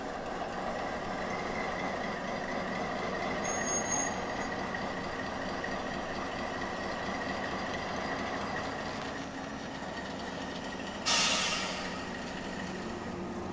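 Diesel locomotive hauling a freight train of open wagons past at low speed: the engine runs steadily over the noise of the wagons rolling on the rails. A sudden short hiss of air comes near the end.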